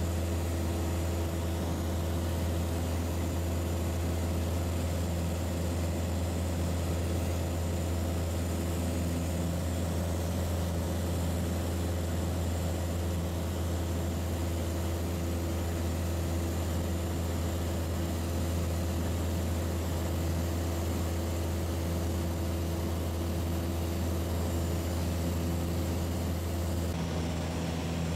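Piper PA-28 light aircraft's piston engine and propeller droning steadily in flight, heard from inside the cabin.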